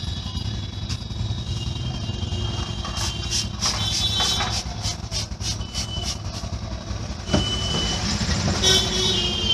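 Steady traffic noise, with a quick run of about ten sharp strikes about three seconds in and a louder single knock later on.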